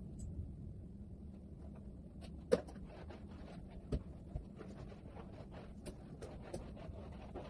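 Scattered small knocks and clicks of household things being handled, with one sharper knock about two and a half seconds in, over a low steady room hum.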